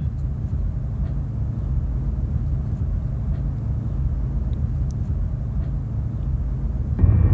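A steady low rumble with a few faint scattered clicks. Just before the end it gets louder and a higher steady whine comes in.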